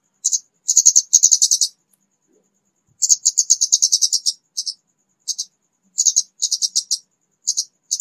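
Scarlet-backed flowerpecker lure call: rapid, high, dry ticking notes, about eight a second, in short bursts separated by brief pauses.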